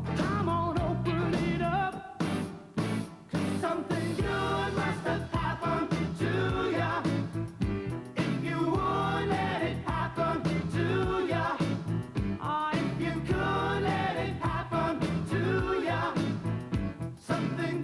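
Mid-1980s pop-soul song with a lead singing voice over a steady beat and bass.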